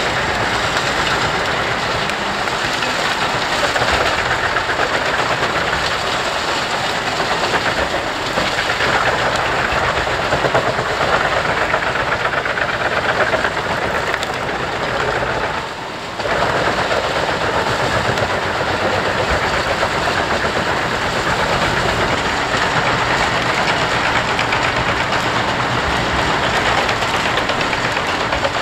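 Jenz HEM 593 Cobra truck-mounted wood chipper running under load, chipping brush with a dense, continuous rattling clatter as the chips blow from its chute into a trailer. The noise dips for a moment a little past halfway.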